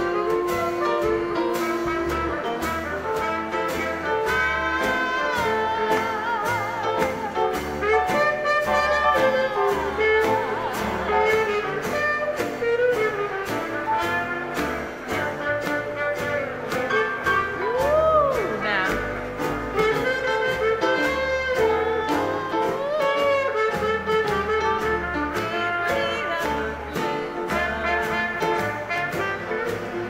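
A 1920s–30s-style jazz dance orchestra playing an instrumental passage, with horns carrying the melody over a steady beat.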